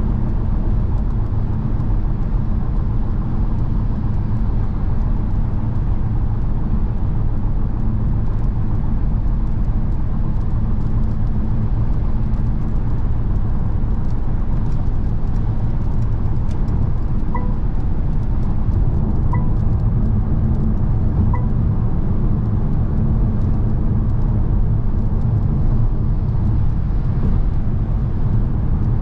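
Mercedes-Benz V 300 d's four-cylinder diesel running steadily at speed with road and tyre noise. About two-thirds of the way through, three short electronic chime tones sound about two seconds apart.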